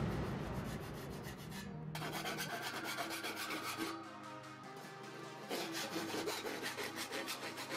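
Hand file rasping in quick repeated strokes around the cut edge of a round hole in a sheet panel, smoothing the rough edge. The strokes ease off briefly about four seconds in, then pick up again.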